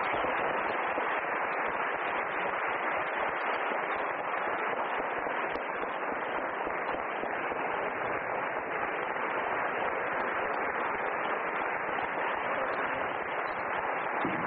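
Audience applauding: a long, steady round of clapping.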